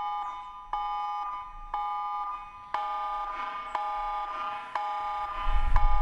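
Emergency alert tone: an electronic beep of several pitches together, striking sharply and fading, repeating about once a second. A low rumbling thump comes just before the end.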